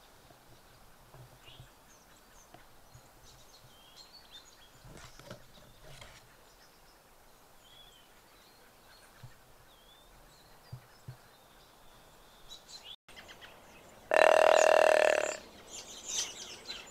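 Handheld hunting call blown in one long, loud note about fourteen seconds in, followed by a couple of short blasts near the end. Before it, only faint chirps over quiet woodland.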